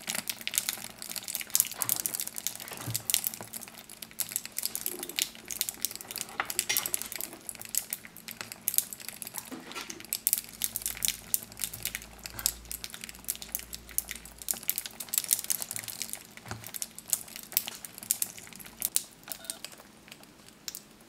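Water-soaked silica gel desiccant beads in a glass crackling and popping with rapid, irregular clicks, like popcorn, as they crack from the heat released when they take up water. The clicks thin out near the end.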